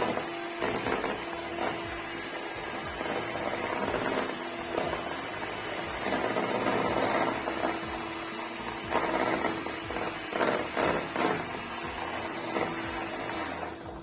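Electric mixer running steadily, beating a cake batter of eggs, sugar, oil and warm milk. It cuts off suddenly near the end.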